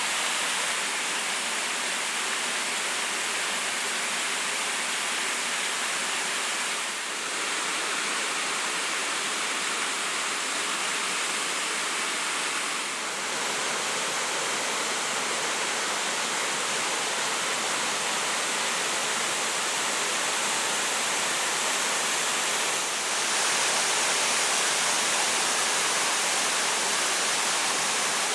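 Steady rush of water falling at a waterfall, an even, full-range noise with a few brief dips in level.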